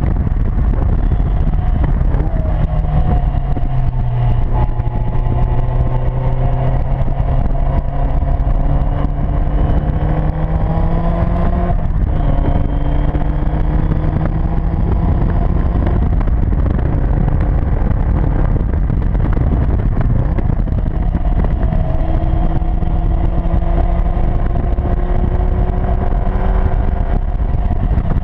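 Seven sports car's engine running hard on track, heard from its open cockpit. The pitch climbs slowly and drops sharply at a gear change about twelve seconds in, then climbs again. Heavy wind rumble on the microphone runs under it.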